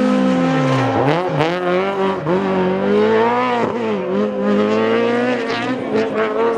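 Ford Escort rally car engine revving hard, its pitch dropping and climbing again several times as the driver lifts off and changes gear, with a few short sharp cracks.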